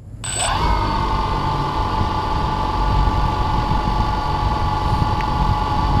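DJI Phantom 2 quadcopter's four brushless motors and propellers spinning up on the ground and idling: a whine that rises briefly just after the start, then holds steady over a rushing propeller hiss.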